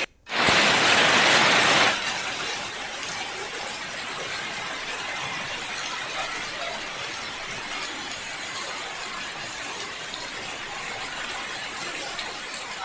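Heavy monsoon rain falling steadily, an even hiss of rain. After a brief dropout right at the start, a louder burst of rain noise lasts about a second and a half, then the rain carries on at a steady level.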